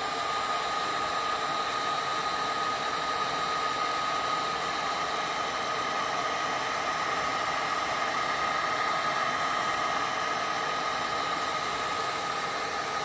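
Hot-air blower running steadily with a constant airy rush and a faint steady whine, heating a phone's edges to soften the glue under the screen.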